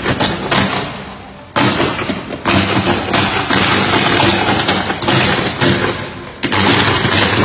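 11 kV overhead power line arcing: loud, continuous electrical crackling and buzzing over a steady hum. It dies down about a second in and again near the end, each time flaring back suddenly as the arc re-strikes.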